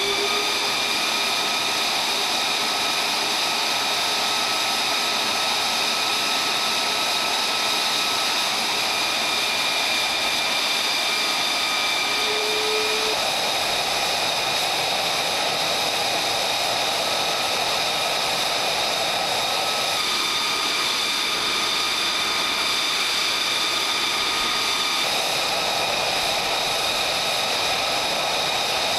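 F-35A Lightning II running on the ground: a steady high-pitched jet whine of several layered tones over a rushing hiss.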